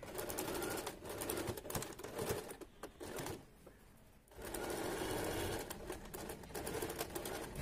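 Domestic sewing machine stitching a seam, its needle running in rapid, even strokes; it stops for about a second midway, then runs again.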